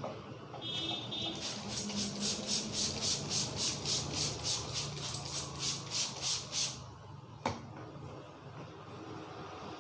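Hands rubbing vigorously over the hair and scalp in a head massage: a rhythmic scratchy swishing, about three to four strokes a second, for about five seconds. A single sharp crack follows.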